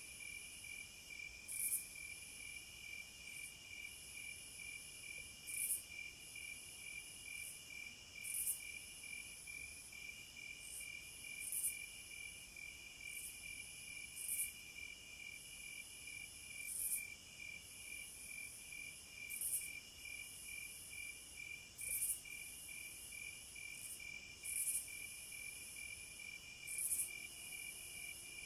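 Cicadas calling in a steady, high shrill chorus that swells into brief louder surges every two to three seconds. Under it runs a lower, evenly pulsing insect chirp about twice a second.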